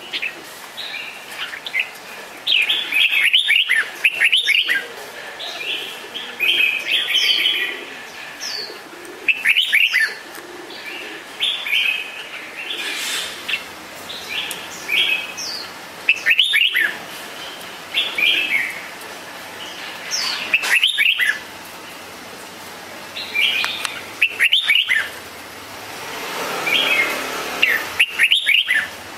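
Red-whiskered bulbul singing: short, loud, quick whistled phrases repeated every few seconds, with softer chattering notes between them.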